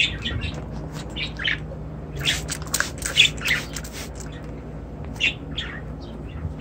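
Budgerigars chirping and chattering in short, high calls, busiest from about two to three and a half seconds in.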